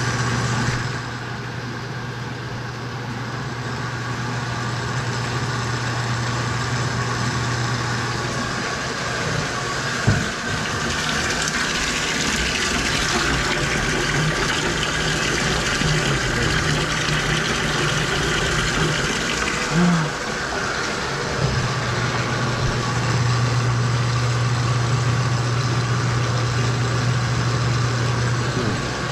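Electric drain-cleaning machine running with a steady hum as its cable works a drain line clogged with lint and grease. Through the middle, the faucet runs water into the laundry tub to test the line, with a sharp knock near the start and the end of the running water.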